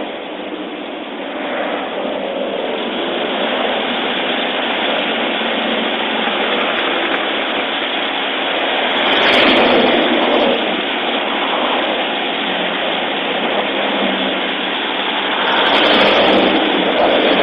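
Steady roadside traffic noise heard through a police microphone, with two louder swells about nine and sixteen seconds in as vehicles pass.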